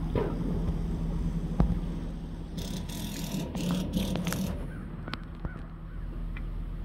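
Birds calling a few times in short honking calls over a steady low hum, with a single knock about one and a half seconds in and a patch of rustling noise a little before the middle.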